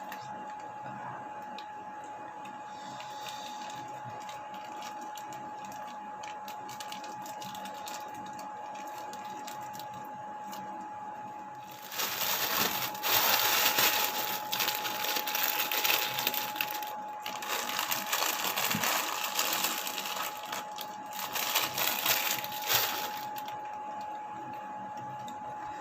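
A steady high-pitched hum throughout. About halfway through comes a stretch of about ten seconds of loud crackling rustle with many small clicks, like packaging or food being handled close to the microphone.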